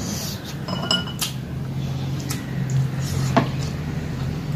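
Light clinks and taps of fingers and food against ceramic plates and bowls as rice and curry are eaten by hand, a few sharper clicks among them, over a steady low hum.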